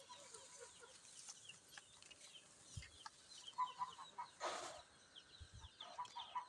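Faint, scattered clucking of chickens, with a brief rustle near the middle.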